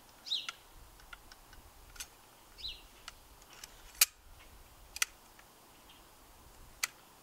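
Scattered sharp clicks and taps from a gas blowback airsoft AK rifle being handled, the loudest about four seconds in. A bird chirps twice in the background.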